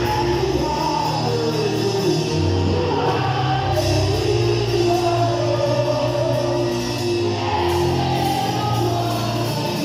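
Live worship music: a man singing a melody in long held notes over amplified band accompaniment with a steady bass line.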